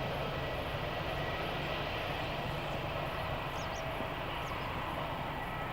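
Jet airliner engines: a steady rush with a faint high whine, with small high chirps now and then.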